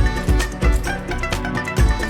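Background music with a steady beat and pitched melodic notes over it.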